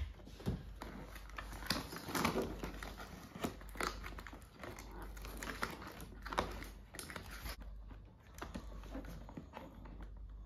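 Cardboard toy box being opened and its plastic contents handled: irregular crinkling and rustling with small knocks and clicks.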